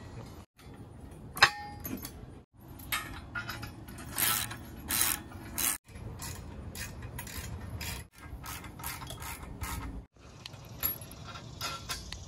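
Ratchet wrench clicking and steel bolts and brackets clinking as a tow hitch receiver is bolted together, with one sharp metallic click about one and a half seconds in. The sound cuts off abruptly several times in short gaps.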